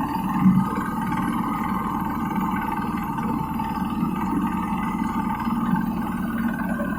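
Mini road roller's engine running steadily.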